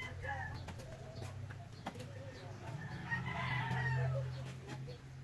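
A rooster crows once, about three seconds in, over a steady low hum.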